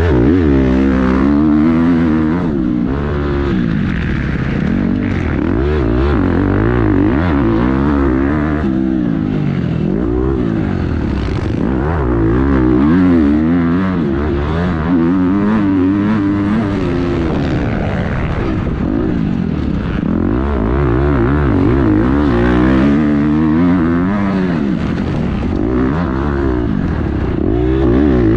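Motocross bike engine heard close up from the bike, revving up through the gears and dropping back again and again as the rider accelerates, shifts and rolls off the throttle.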